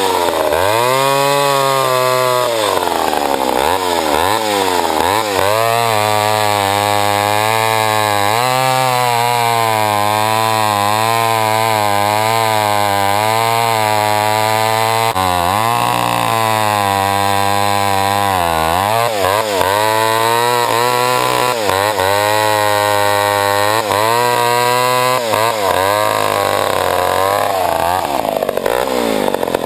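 Old 65 cc Pioneer two-stroke chainsaw running hard while pulling a 28-inch bar, its engine speed wavering and dropping sharply several times before picking back up, as it does when the chain loads up in a cut.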